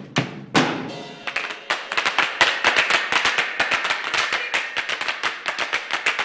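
Malambo zapateo: several dancers' boots stamping and tapping on a tile floor. After a few louder strikes near the start, the taps settle into a fast, even rhythm.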